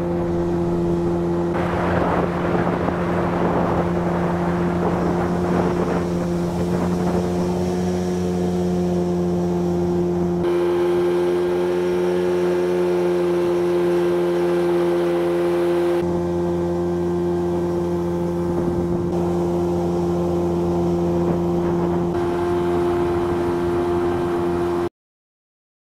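A Mercury outboard motor pushing an inflatable boat, running steadily at cruising speed with water rushing under the hull. It cuts off about a second before the end.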